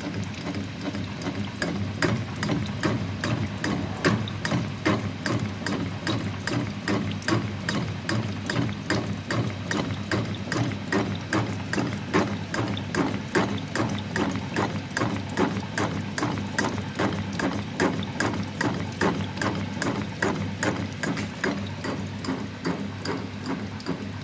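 Keyway-cutting tool on a Goodway 1640 lathe stroking back and forth through a pulley bore, each cutting stroke a short sharp scrape, about two a second in an even rhythm, over a steady low hum.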